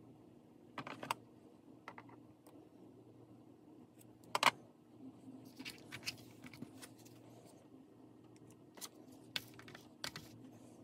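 Small handling noises on a craft desk: scattered light clicks and taps as twine and a pair of scissors are picked up and set down, the loudest about four seconds in, over a low steady hum.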